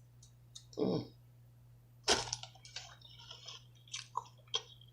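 Close-miked chewing of food. It opens with a short hummed 'mm', then a sharp crunch about two seconds in, followed by a run of smaller wet clicking mouth sounds.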